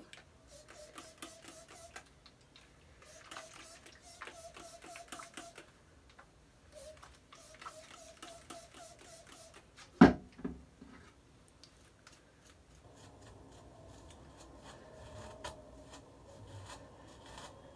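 A comb being pulled through thick, curly hair in several strokes, each a quick run of small crackling clicks as the teeth work through the strands. A single loud knock about ten seconds in.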